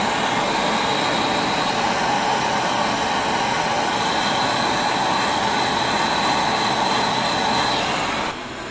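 Brazing torch flame hissing steadily, with a thin high whistle, as it heats a leaking joint on a split AC's copper condenser coil; it cuts off about eight seconds in.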